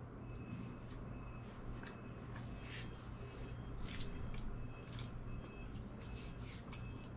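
A person chewing a soft bread roll, with irregular smacking mouth sounds. A low steady hum runs underneath.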